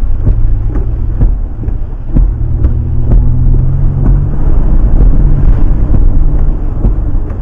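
Vehicle engine running steadily at a low pitch while driving through shallow water, heard from inside the cabin, with water splashing and spraying against the windshield and body. Irregular knocks and thumps run through it.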